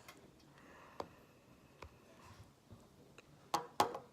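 A few light clicks and taps from handling a phone and small objects, with two louder knocks near the end.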